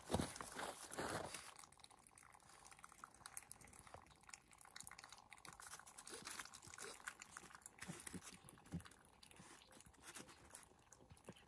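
A short, louder rustling noise in the first second, then near silence with faint, scattered small ticks.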